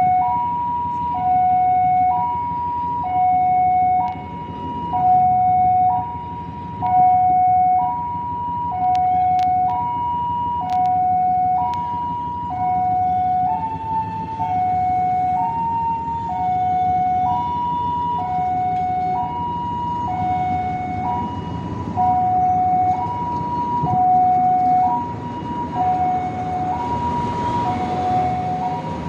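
Railway level-crossing warning alarm sounding a two-tone electronic signal, a higher and a lower note alternating about once a second, over the low rumble of a train moving slowly past. Wheel-on-rail noise grows louder near the end as the carriages come by.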